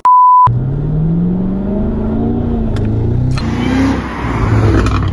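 A steady high test-tone beep for about half a second. Then the supercharged 6.2-litre V8 of a Cadillac CT5-V Blackwing accelerates hard, its pitch rising, dropping at a gear change and rising again.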